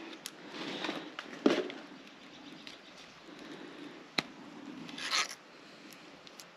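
Hands working a red anodized AN hose-end fitting onto steel-braided PTFE fuel line, making small scraping and rattling handling noises. There is a knock about a second and a half in, a sharp click about four seconds in and a short scrape about five seconds in.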